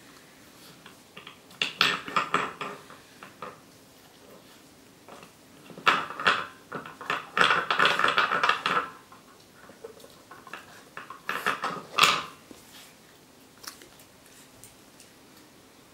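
Hard pieces of a bone-shaped dog puzzle toy clattering and knocking against the board and floor as a small dog noses and lifts them, in three spells of rapid clicks with quiet between.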